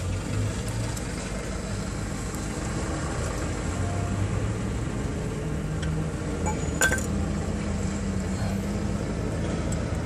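A single sharp metallic clink about seven seconds in, as a hand tool strikes metal during brake work, over a steady low rumble.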